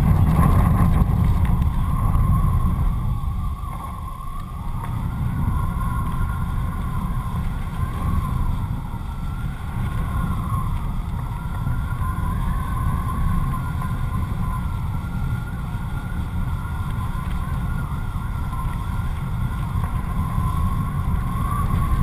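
Wind rushing over a GoPro camera mounted on the strut of a flying kite: a steady low buffeting, with a thin whistle that wavers slightly in pitch. It is loudest in the first couple of seconds.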